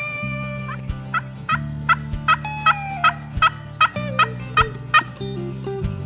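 Turkey yelping: a steady, even series of short sharp notes, about two or three a second, running through the whole stretch.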